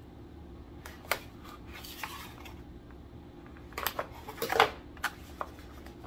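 Scattered clicks and rustles of a cardboard box insert and packaging being handled and pulled apart, with the loudest cluster about four to five seconds in.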